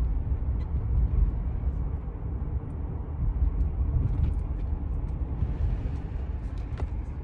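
Steady low rumble of a car on the move, heard from inside the cabin: engine and road noise. A few faint clicks come near the end.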